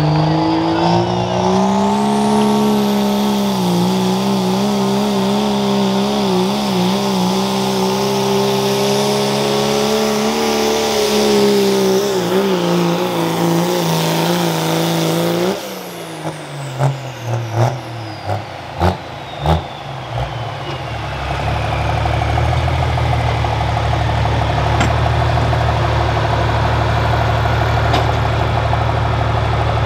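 Dodge Ram diesel pulling truck under full throttle, with a high turbo whistle rising in the first couple of seconds and the engine note holding steady for about fifteen seconds. It lets off suddenly, several sharp knocks follow, the turbo whine falls slowly away, and the engine settles to a steady idle.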